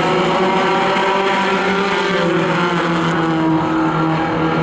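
A pack of four-cylinder compact race cars running together under power around a short oval, with many engines making a steady, layered drone. The engine pitch rises slightly about halfway through.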